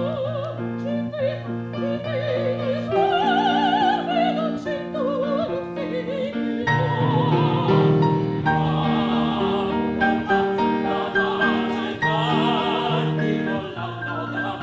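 Operatic singing with strong vibrato over instrumental accompaniment: a high solo voice at first, then several voices singing together from about seven seconds in.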